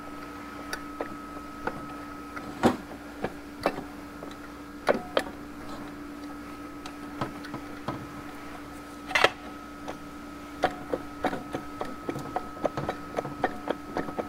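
Steel pry bar knocking and clinking against the seized internals of a heat-destroyed GM 4L80E automatic transmission as it is levered to free them. Irregular metal knocks, the loudest about two and a half and nine seconds in, coming faster near the end.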